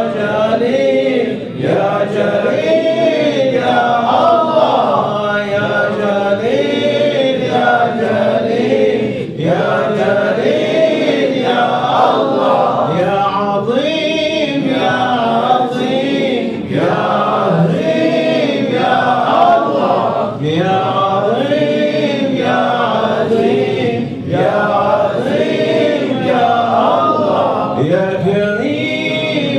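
Male voices chanting Sufi dhikr together in Arabic, a short melodic phrase repeated over and over in a steady rhythm.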